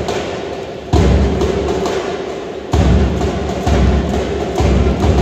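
Loud music with heavy low drum beats that start suddenly and trail off, roughly one every second or two.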